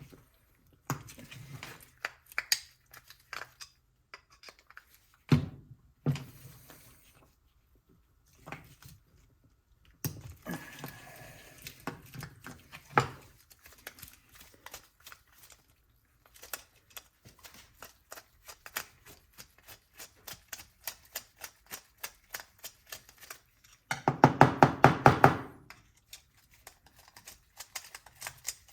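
Clicks and light metal taps of a screwdriver and small carburetor parts being handled as a snowblower carburetor is taken apart and its main jet removed. The clicks come irregularly, with a louder rapid run of clicks lasting about two seconds near the end.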